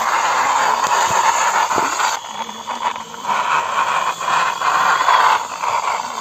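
Orange plastic toy excavator being handled and moved on gritty concrete, giving a steady rattling hiss with many small irregular ticks that eases off somewhat about two seconds in.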